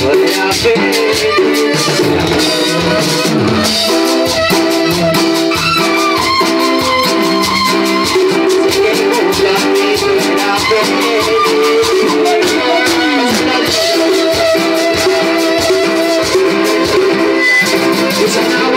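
Live music playing loud, with a fast, even percussion beat and a short repeating melody.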